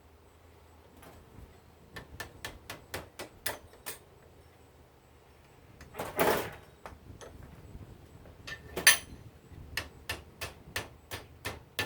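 Sharp metal clicks and taps of a pointed hand tool working at the small parts of a water heater valve, in quick runs, with a longer scraping noise about six seconds in and a louder knock about nine seconds in.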